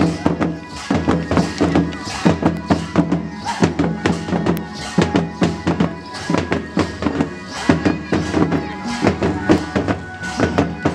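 Santali folk dance music: a steady beat of drums, about three strokes a second, under a held, droning melody.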